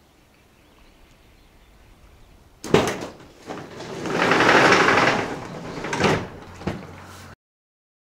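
A camper van door being opened: a sharp clunk, then a swelling rush about a second and a half long, then two short knocks.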